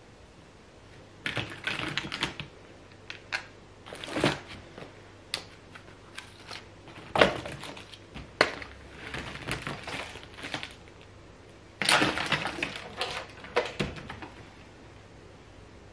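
Household belongings being rummaged through and shifted around in a cluttered pile: wire hangers, plastic bags and small objects clicking, clattering and rustling in irregular bursts, with a louder burst about a second in and another about three-quarters of the way through.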